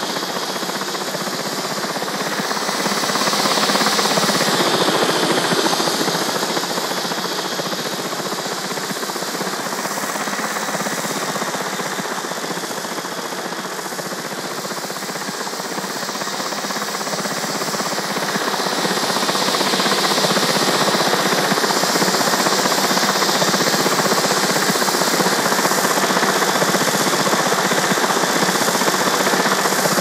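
Radio-controlled scale model Little Bird helicopter in flight: a steady buzzing whir of its motor and rotors. It swells a few seconds in, then grows louder again about two-thirds of the way through and stays loud as the model comes in low.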